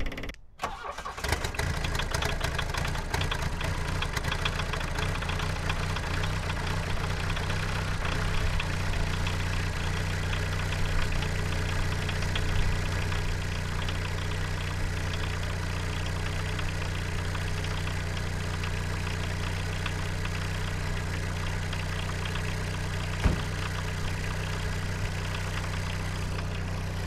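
VW 1.6 turbodiesel four-cylinder engine starting about a second in, then idling steadily. There is one sharp knock near the end.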